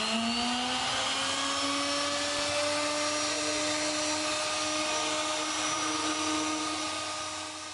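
Power tool motor winding up with a rising whine, then running at a steady high speed and fading away near the end.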